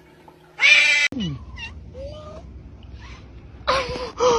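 Cat meowing several times: a loud meow about half a second in, quieter calls in the middle, then two loud meows near the end, the last one falling in pitch.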